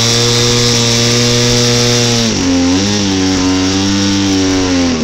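Engine of a large Extra 260 model airplane running at a fairly high, steady speed, then throttled back to a lower speed about two seconds in, easing down again near the end.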